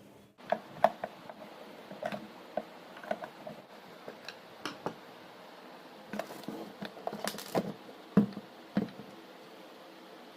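Irregular light clicks and knocks of parts being handled. They come a second or so apart, with a few sharper taps near the end.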